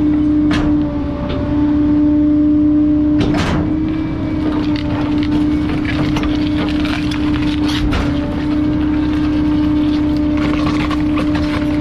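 Rear-loading garbage truck's packer blade cycling: a steady hydraulic whine over the running engine. A few sharp cracks come as cardboard and a cushion are crushed in the hopper, the loudest about three and a half seconds in.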